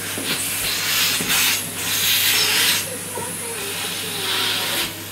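Air rushing with a hiss in several bursts of about a second each, as an air bed is deflated.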